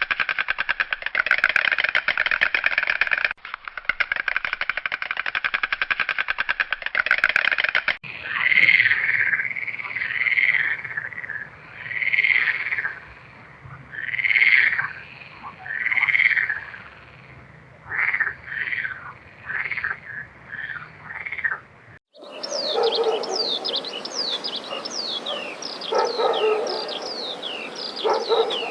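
A run of animal calls in three parts. First comes a rapid buzzing trill for about eight seconds. Then there are separate repeated calls every second or two, quickening near the end. The last part is a flurry of many quick, falling chirps.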